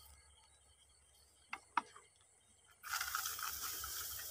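Two sharp clicks, then about two seconds of loud rustling and crunching starting about three seconds in, over a faint steady chirping of night insects.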